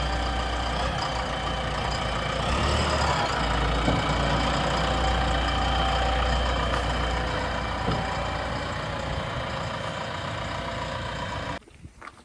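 Heavy diesel engine running steadily with a deep hum, a little louder from about two seconds in, then cutting off abruptly near the end.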